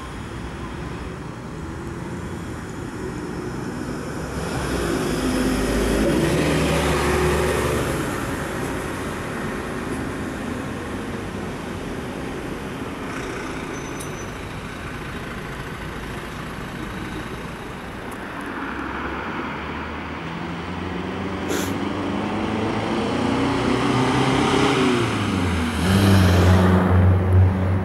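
Road vehicles passing on a street: one goes by about five to eight seconds in, then a heavy engine draws near and runs loud and close in the last two seconds, with a single sharp click about twenty-one seconds in.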